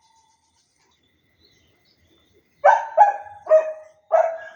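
A dog barking four times in quick succession, starting about two and a half seconds in.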